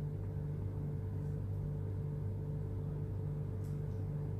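A steady low hum that throbs evenly about twice a second, with one faint click about three and a half seconds in.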